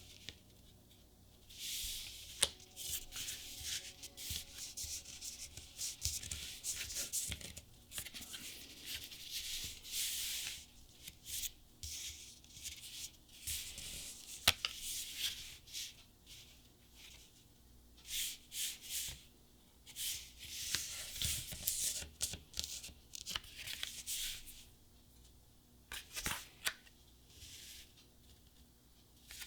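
Disney Lorcana trading cards being handled, rubbing and sliding against one another in short bursts with quiet gaps between, and a few sharp clicks.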